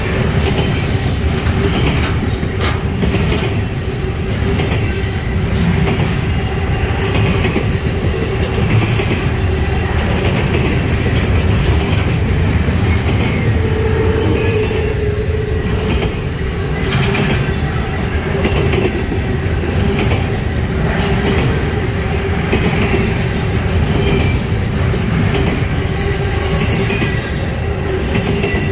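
Double-stack intermodal train's well cars rolling past: a continuous rumble of steel wheels on rail, with scattered clicks and clanks and a steady whine underneath.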